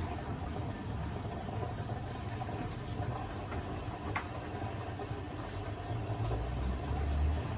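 Beko WTK104121A washing machine running mid-programme: a steady low motor hum and drum rumble, swelling in the last couple of seconds as the drum turns, with a few faint clicks.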